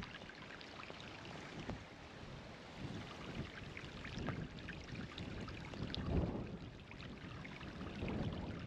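Flood-swollen river running over gravel and rocks: a steady rush of water with many small scattered ticks and splashes and a few louder low swells.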